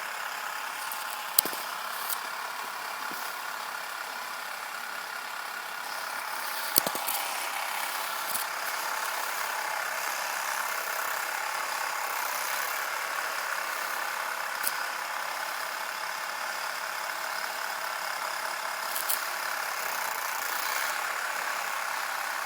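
Small electric motor of a Dr. Dreadful Alien Autopsy toy running steadily after being switched on, with a few light clicks about 1.5, 7 and 15 seconds in.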